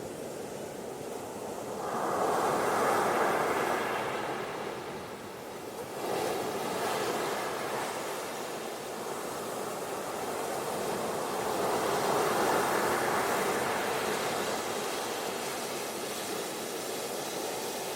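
Ocean surf washing onto a beach, a steady hiss that swells as waves come in: once about two seconds in, again with a sudden surge around six seconds, and once more about twelve seconds in.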